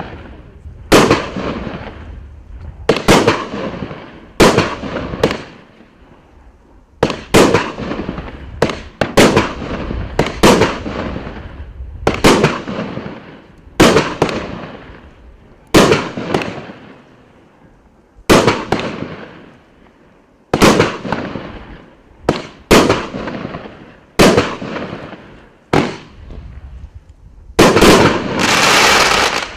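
A 19-shot, 30 mm firework barrage cake (Riakeo Vortex 7) firing: sharp bangs about one to two seconds apart, often in close pairs, each fading away after it. Near the end comes a denser, louder volley of shots.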